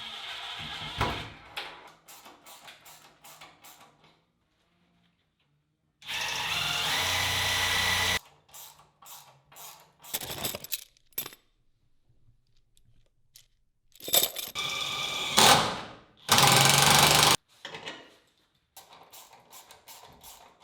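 Power drill running for about two seconds, amid clicks, knocks and short bursts of tool work on pipework, with a louder burst of tool noise near the end.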